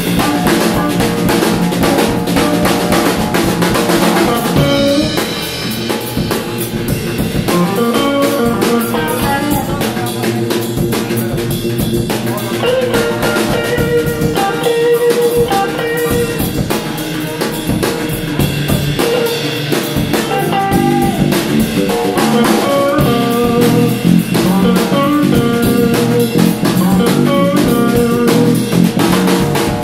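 Live instrumental by a trio of drum kit, electric bass guitar and hollow-body electric guitar, the drums keeping a busy steady beat under melodic guitar lines.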